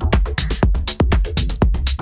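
House / tech house DJ mix: a steady four-on-the-floor kick drum at about two beats a second, with a deep bassline under it and high hi-hat ticks between the kicks.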